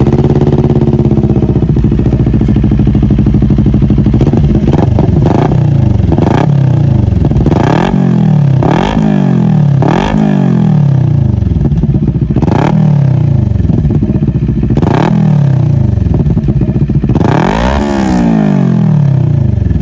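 CFMOTO NK400's parallel-twin engine through an Akrapovic twisted-loop exhaust, idling briefly, then blipped about ten times in quick throttle revs. Each rev shoots up and falls back to idle, with a longer rev near the end.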